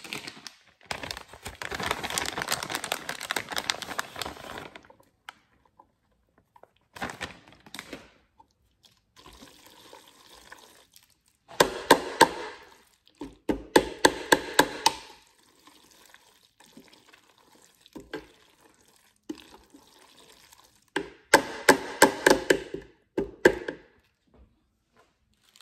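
Tongs stirring wet, saucy macaroni and cheese in a nonstick cooking pot: sticky squelching with the tongs clicking against the pasta and pot, in several bursts with pauses between. Near the start, a plastic cheese bag crinkles for a few seconds.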